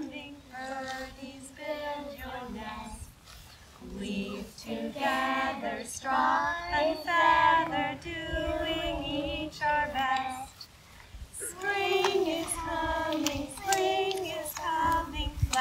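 A group of young children and women singing a song together, with a short pause in the singing about two-thirds of the way through.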